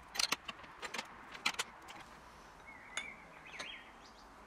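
Light metallic clinks and taps of steel tubing and flat-bar hinge parts being handled and fitted together, several in quick succession in the first second and a half and one more about three seconds in. A bird chirps briefly around the three-second mark.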